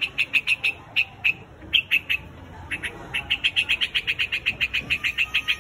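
A white-headed quạch mốc bird calling its flock with short, sharp chirps, scattered at first and then running together into a fast series of about eight a second from about three seconds in.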